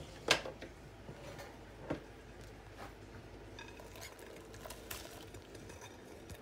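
Mixing utensil knocking and scraping against a metal mixing bowl as a thick, creamy cheese mixture is stirred: a sharp knock just after the start, another about two seconds in, and light scrapes and ticks between.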